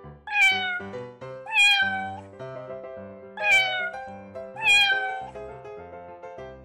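A domestic cat meowing four times, in two pairs, each meow falling in pitch, over light background music.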